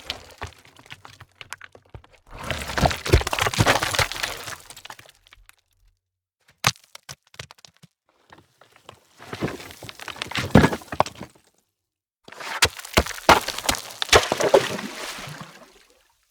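Stones crashing and tumbling: three bursts of clattering stone-on-stone impacts, each two to three seconds long, with a few separate sharp knocks between the first and second.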